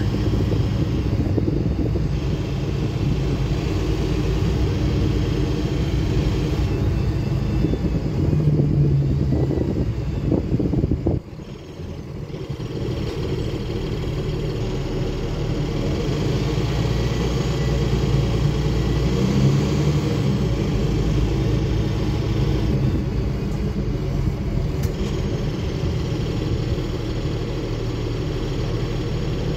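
Inside the cabin of a 2009 Nova Bus city bus under way: steady engine rumble and road noise. The engine note rises and grows louder for a few seconds, drops off suddenly about eleven seconds in, then builds back up to a steady run.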